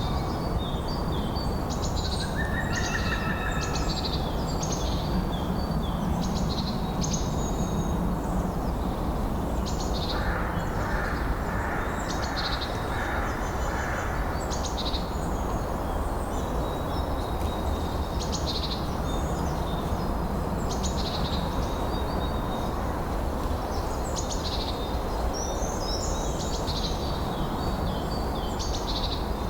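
Small songbirds calling and singing in many short high-pitched phrases over a steady rush of wind. A lower, repeated call comes in from about ten to fifteen seconds in.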